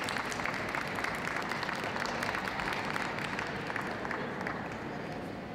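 Ringside crowd applauding, many hands clapping at once, fading away near the end.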